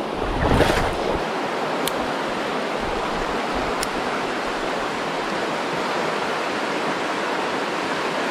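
Mountain stream rapids rushing steadily over rocks. A brief low rumble comes about half a second in.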